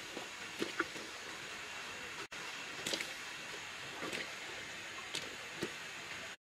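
Soft plops and light knocks, several times, as pieces of chicken and sliced root are dropped into a clay pot of water, over a steady hiss.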